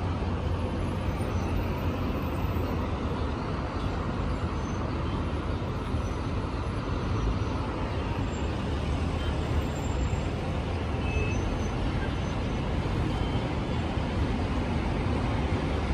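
Steady rumble of heavy road traffic from a congested road of buses, vans and cars, heard from above.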